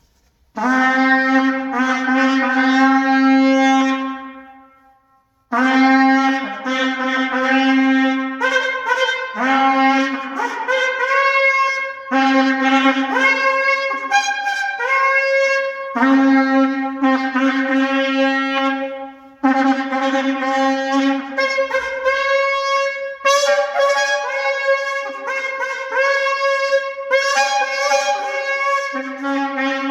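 Male sable antelope horn shofar being blown: a long, loud, steady low blast lasting about three seconds, then after a short pause a run of blasts that break every few seconds and jump between the low note and a higher one.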